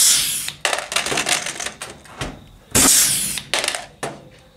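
Pneumatic pop-rivet gun pulling blind rivets into an aluminium skin: two pulls, each a short sharp hiss of air, nearly three seconds apart, with small clicks and rattles between them as the gun is moved to the next rivet.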